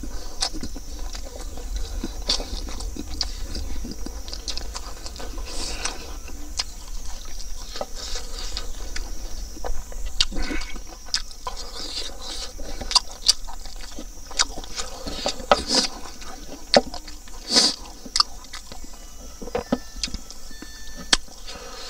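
A person eating pork ribs and rice by hand, with wet chewing and lip smacks making many short, sharp clicks.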